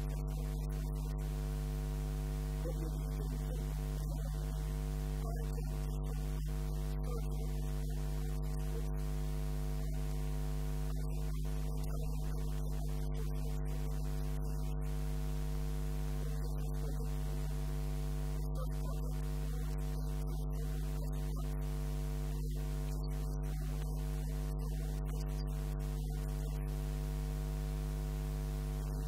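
Steady electrical mains hum with a series of higher overtones, unchanging in pitch and level.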